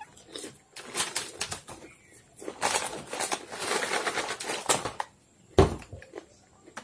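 Potato chips and wafers crunching as they are chewed, mixed with the crinkle of plastic chip packets being handled: a run of short, sharp crackles. A single low thump comes about five and a half seconds in.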